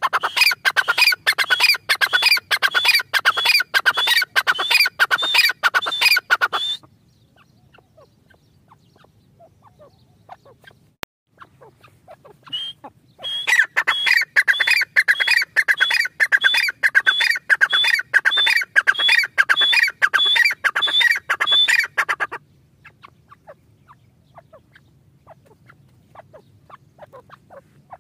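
Gray francolin (teetar) calling: two long bouts of loud, shrill notes repeated rapidly, about three a second, the first ending near a quarter of the way in and the second starting about halfway through.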